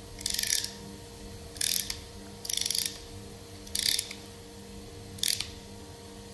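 Ratcheting clicks from a hand rivet nut setting tool as its head is worked, in five short bursts a second or so apart.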